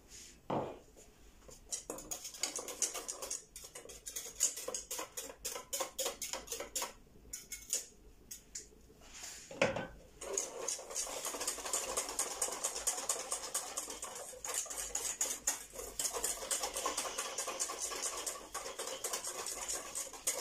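Wire whisk clicking and scraping rapidly against a small bowl, mixing ground achi thickener with water. The strokes are scattered at first, with one louder knock a little before halfway, then become fast and steady for the second half.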